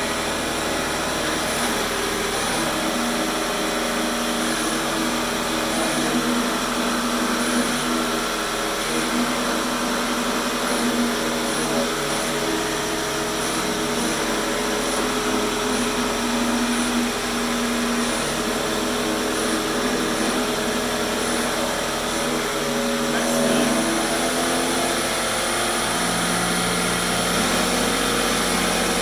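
Meltybrain spinning combat robot whirring steadily as it spins in place on its brushless-motor-driven wheels, a steady motor whine over a hiss. The tone shifts about three-quarters of the way through as it drifts.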